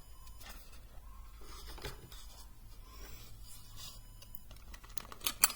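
Faint handling noise as a small Starrett tool box is opened and its contents moved: light scraping and rubbing with soft clicks, and a couple of sharper clicks near the end.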